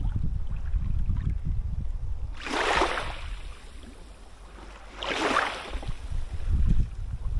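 Sea kayak paddle blades dipping and pulling through the water, three splashy strokes a couple of seconds apart, over a steady rumble of wind on the microphone.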